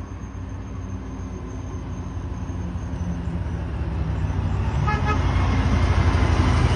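Township dump truck approaching on the road, its diesel engine and tyre noise growing steadily louder as it closes in. About five seconds in, a short horn toot sounds over it.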